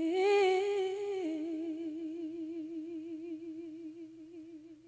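A singer's long held closing note with a wavering vibrato. It drops a step in pitch a little over a second in, then fades away.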